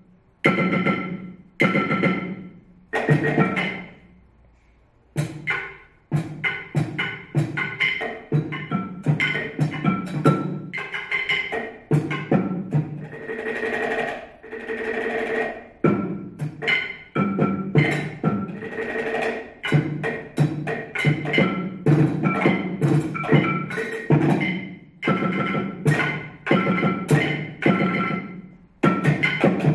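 Percussion duet of wooden mallets striking small objects on a table, such as wooden boxes and tins, in a dense run of quick strikes with a woody, pitched ring. The playing stops for about a second around four seconds in.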